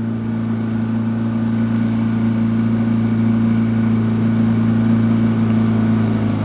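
Small jon boat's motor running steadily under way, a low even hum that eases off slightly near the end.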